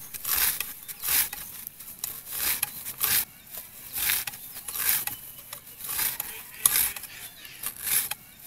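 Manual lever chaff cutter, its curved steel blade chopping through bundles of dry straw. Rhythmic crunching, slicing cuts, about one a second.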